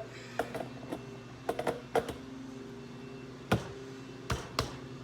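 Scattered sharp plastic clicks and taps, about eight of them, from handling a cordless impact wrench's battery and charger while plugging the charger back in, over a steady low hum.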